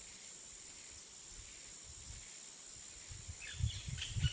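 Faint background ambience with a steady high-pitched whine, with a few soft low thumps and short chirps near the end.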